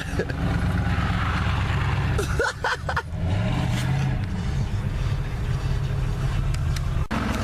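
Car engine running with a deep exhaust rumble, briefly rising and falling in pitch a few seconds in as it is revved or pulls away. Brief voices come through in the middle.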